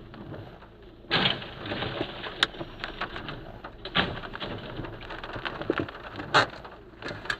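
A white Renault van crashing over onto its side on the road ahead: a sudden loud crash about a second in, then clattering and crackling noise with several sharp knocks as it comes to rest and debris scatters.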